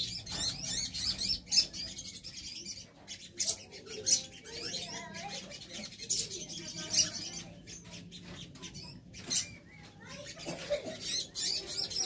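A colony of sogon (brown-throated sunbirds) calling together: a busy, overlapping mix of sharp high chirps and rapid twittering notes from several birds at once, with a few louder calls standing out.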